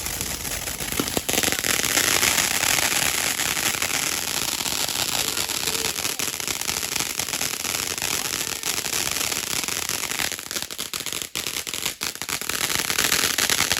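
Consumer fireworks crackling: a dense run of rapid small pops and crackles, starting up about a second in, thinning out around ten to twelve seconds and building again near the end.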